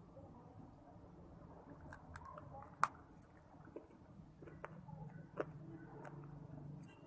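Mouth sounds of biting and chewing crunchy pieces of clay and shale stone: scattered soft crunches and sharp cracks. The loudest snap comes about three seconds in, and another a little after five seconds.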